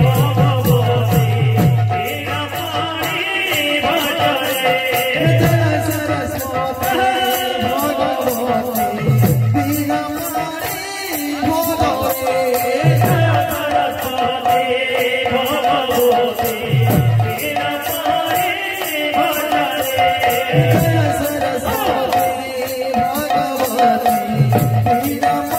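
Devotional kirtan music: voices singing over sustained melodic tones, a fast steady jingle of hand cymbals, and deep drum strokes that slide down in pitch about every four seconds.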